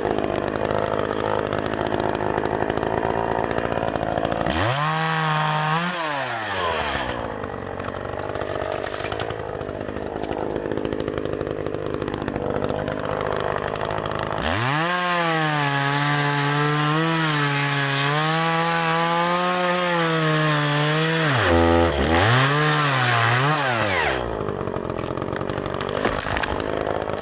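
Chainsaw cutting up a dead, dry fallen tree trunk, running loud and steady throughout. The saw's pitch climbs and drops as it moves between biting into the wood and running free. A clear high tone holds for several seconds in the middle, then dips and rises again.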